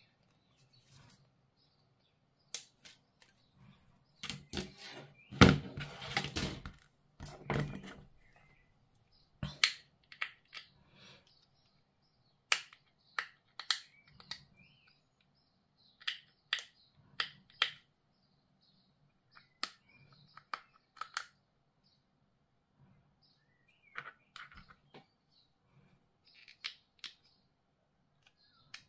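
Sprue cutters snipping plastic model-kit parts from the sprue, and the small plastic parts being handled and fitted together: scattered sharp clicks and snaps, with a louder run of handling noise about five seconds in.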